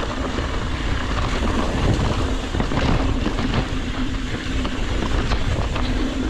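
Ibis Ripmo full-suspension mountain bike rolling fast down a dirt trail: knobby tyres crunching over dirt, gravel and dry leaves, with scattered small clicks and rattles from the bike over bumps. Wind buffets the camera microphone in a steady low rumble.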